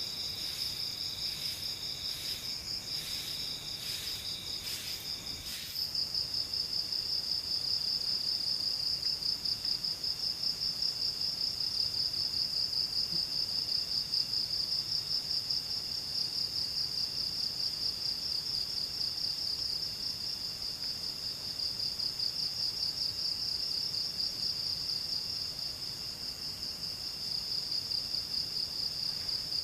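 Crickets trilling steadily on a high, rapidly pulsing note, several overlapping, as in a night-time forest chorus. During the first six seconds a run of short, sharp clicks sounds over the trilling, at about one a second.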